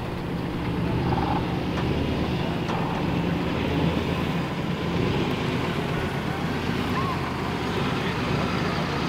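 Pickup truck engine running steadily at low revs as the truck slowly reverses a utility trailer over rough ground, a constant low hum with no revving.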